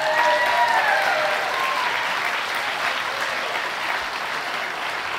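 Audience applauding, the clapping slowly tapering off. A single voice calls out briefly over it in the first second or two.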